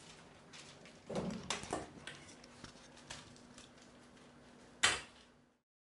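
Kitchen clatter of dishes and utensils: scattered clicks and knocks, a busier cluster about a second in and one sharp loud knock near the end, after which the sound cuts off.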